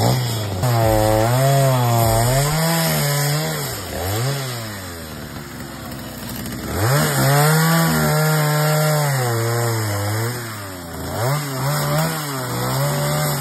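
Small chainsaw cutting up dry branches. Its engine revs up and falls back again and again as the chain bites into the wood, easing off briefly about four seconds in and again about ten seconds in.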